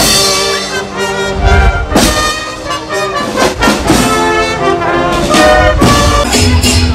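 Costumed parade marching band playing: brass horns holding notes over bass and snare drum beats.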